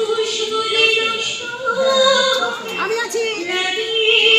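A woman singing solo into a microphone, holding long notes that bend from one pitch to the next.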